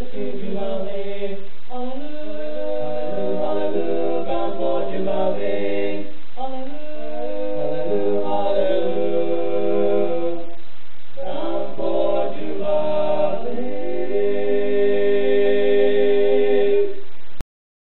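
A small group of voices singing in harmony, in long sustained phrases that close on a held chord near the end before cutting off abruptly.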